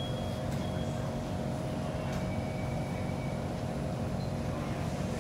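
Steady interior hum of a Kawasaki C151 MRT train standing at a station with its doors open, with a constant low tone and a few faint ticks.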